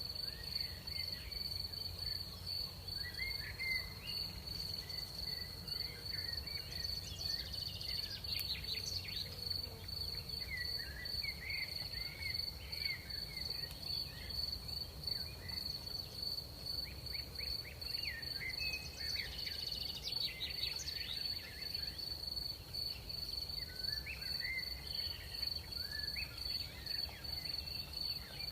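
Crickets trilling in one continuous high, steady note, with scattered short chirping calls from other night animals coming in clusters, over a faint low rumble.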